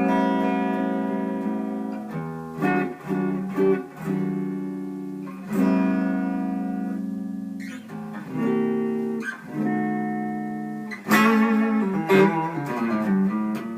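Electric guitar played clean through a single-ended 6V6 tube amp into a Vintage 30 speaker. Chords are left to ring and fade, then quicker picked notes come near the end.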